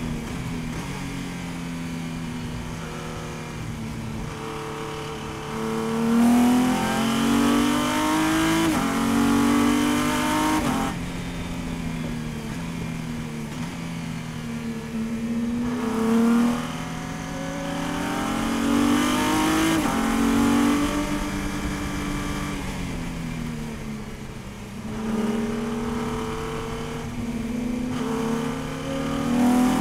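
Race car engine heard from inside the cockpit under hard acceleration, its pitch climbing in steps through the upshifts, then dropping away under braking and downshifts, in three cycles.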